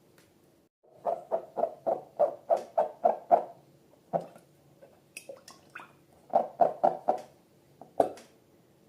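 Slime being squeezed and worked by hand, making quick runs of wet squelches and air pops at about four a second, with a pause between two bursts.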